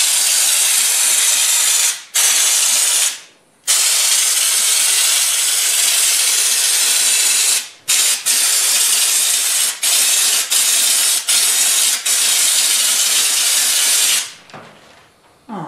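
Compressed-air bed-liner spray gun with a Raptor liner bottle fitted, hissing loudly and steadily while the trigger is held to spray textured liner. It is cut by a few brief trigger releases, a longer pause about three and a half seconds in, and it stops near the end.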